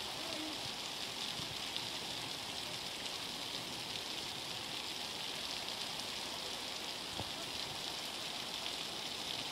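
Heavy rain falling together with floodwater rushing down a street, a steady, even hiss with no breaks.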